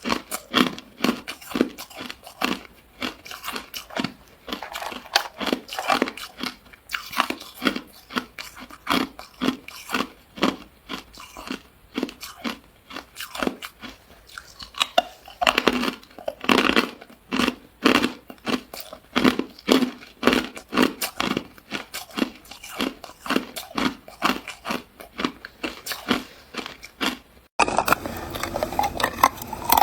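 Close-up crunching and chewing of ice, sharp crunches coming about two to three a second. Near the end the background hiss rises suddenly and the crunching carries on.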